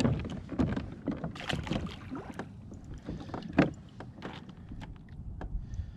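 Irregular knocks and clatter of handling on a plastic fishing kayak, with one sharper, louder knock about three and a half seconds in.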